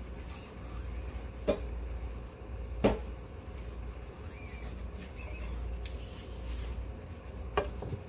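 Steak pieces searing in oil in a stainless-steel skillet, a light, steady sizzle. Three sharp knocks cut through it, one about a second and a half in, another a little over a second later, and a third near the end.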